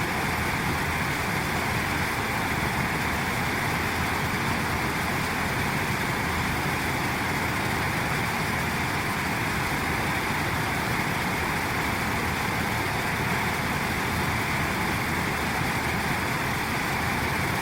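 Steady, even rushing noise with no distinct calls or strikes, strongest in the middle range.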